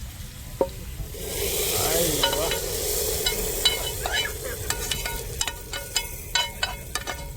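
Hot ghee with fried cashews, raisins and onion poured into the pot of semolina, sizzling and hissing from about a second in. In the second half, a spoon clinks against metal several times a second as the sizzle dies down.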